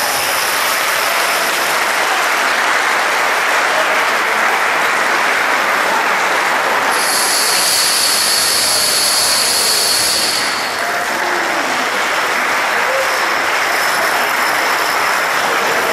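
Thousands of dominoes toppling in a continuous dense clatter. For about three seconds in the middle, a brighter, hissier rush joins in.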